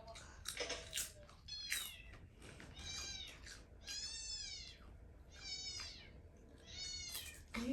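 A cat meowing repeatedly: about five high-pitched meows, each rising and falling in pitch, a second or so apart.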